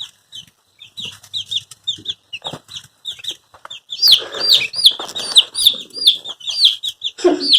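Cornish Cross broiler chicks peeping: a steady stream of short, high chirps that grows louder and busier about four seconds in.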